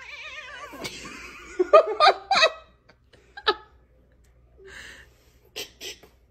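A domestic cat's long wavering yowl, followed by a person laughing in a few loud bursts.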